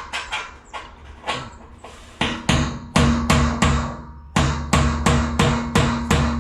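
Hammer driving nails into timber: a few irregular blows, then from about two seconds in a fast, steady run of strikes, roughly four a second.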